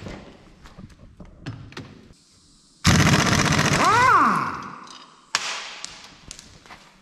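Pneumatic impact wrench rattling on the top nut of a BMW front suspension strut for about a second and a half, then its motor winding down in a falling whine once the trigger is released. A sharp clack with a short hiss follows about a second later.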